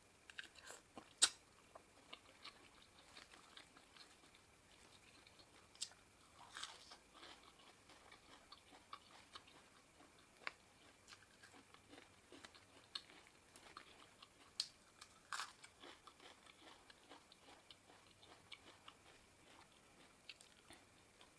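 Faint close-up eating sounds: a person chewing and biting spicy seafood papaya salad, with scattered small clicks and crunches. There is a sharper crack about a second in.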